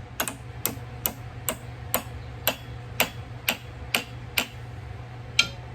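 Ball-peen hammer tapping a tapered pin into a cast-iron gear, about two quick strikes a second, then a short pause and one louder blow near the end.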